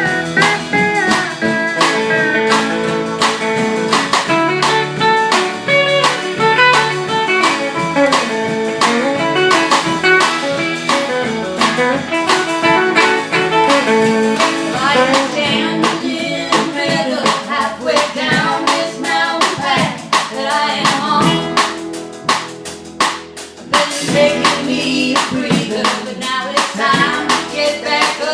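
A live band playing a blues-tinged country song: lead guitar and steel guitar lines over bass and drums. The band thins out briefly about 22 seconds in, then the drums come back in with sharp hits.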